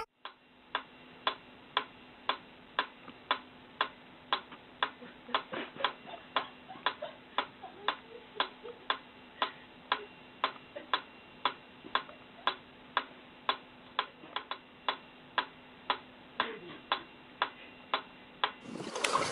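Mechanical pyramid metronome ticking steadily, about two ticks a second, stopping abruptly near the end.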